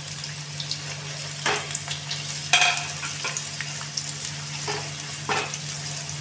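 Sliced onions sizzling in hot mustard oil in a non-stick kadai, frying soft, while a slotted spatula stirs them and scrapes the pan a few times, the loudest scrape about two and a half seconds in.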